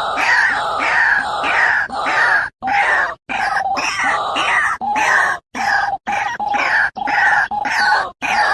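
Birds calling loudly and repeatedly in harsh, overlapping cries, a few a second, with the sound cutting out abruptly several times.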